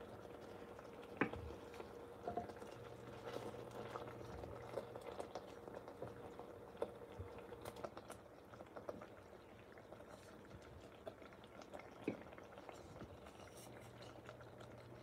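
Fish fillets in melted butter simmering faintly, with a small steady crackle of bubbling juices. A wooden spatula knocks and scrapes against the dish now and then, loudest about a second in.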